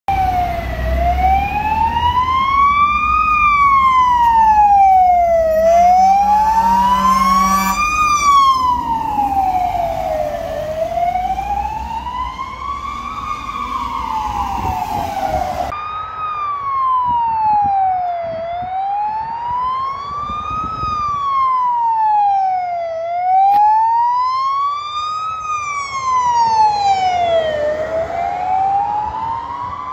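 Fire engine sirens wailing in a slow rise and fall, about one cycle every five seconds, with a low truck engine rumble beneath. A low horn blast of about two seconds comes around six seconds in. About halfway through, a second fire engine's siren takes over with the same slow wail.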